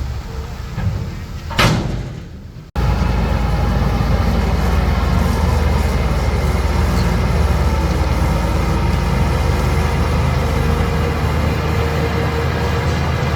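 A single metallic clank about a second and a half in, then an abrupt cut to the heavy diesel engine of an earth-moving machine running loudly and steadily.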